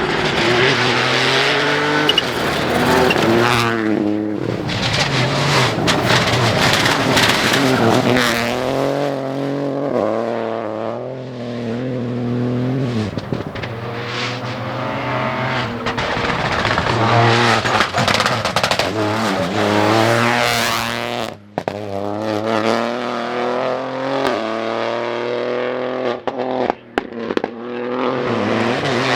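Rally cars driven flat out: engines revving high and dropping in pitch again and again through gear changes. The sound breaks off abruptly a few times, with a few sharp cracks near the end.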